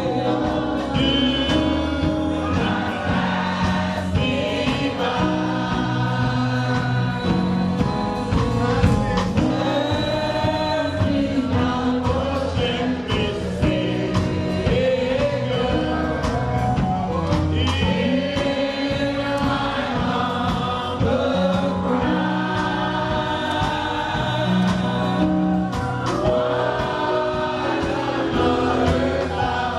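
Gospel music with a choir singing over steady bass and keyboard accompaniment.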